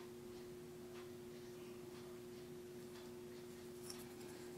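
Near silence: quiet room tone with a faint steady hum at two low pitches, and one small click about four seconds in.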